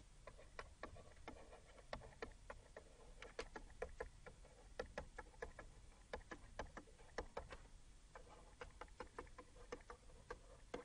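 Faint, irregular light clicks and taps, a few a second, of a stylus pen on a graphics tablet as text is handwritten.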